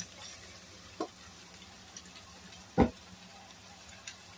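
Broccoli faintly sizzling in a stainless steel pot while a spatula stirs it, with a few light clicks of the spatula against the pot and one loud knock just before three seconds in.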